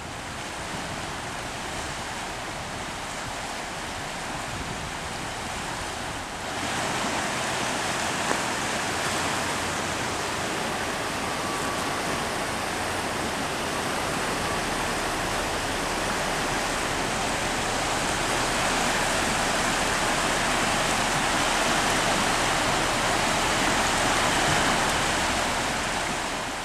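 Fast-flowing creek water rushing, a steady noisy rush that grows louder about six seconds in.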